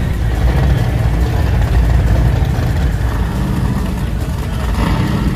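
Several high-performance powerboat engines idling together at low speed, a deep steady rumble.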